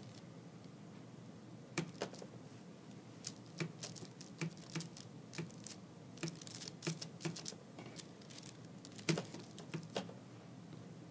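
A paintbrush dabbing and stroking Mod Podge over tissue paper on a small wooden piece: a scatter of light, irregular taps and soft rustles that starts about two seconds in.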